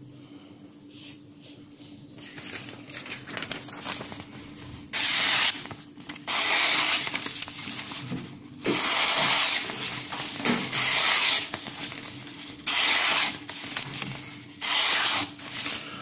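Spyderco Paramilitary 2 knife slicing through a hanging sheet of paper in a series of loud hissing cuts, six or seven strokes from about five seconds in, after faint paper rustling at the start. This is a paper-slicing test of the freshly honed CPM S30V edge.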